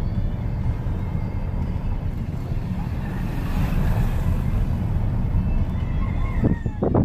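Car driving along a street, heard from inside the cabin: a steady low rumble of road and wind noise through a partly open window. A short falling squeal and a few knocks come near the end.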